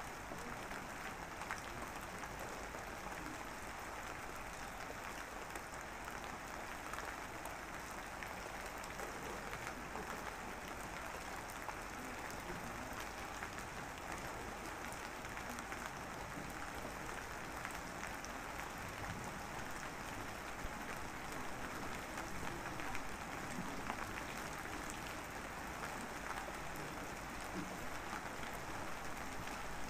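Steady rain falling: an even hiss dotted with many small, quick drop ticks.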